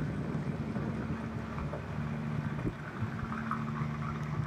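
A 54-foot Cheoy Lee trawler's engine running steadily underway: a low, even drone heard from inside the wheelhouse.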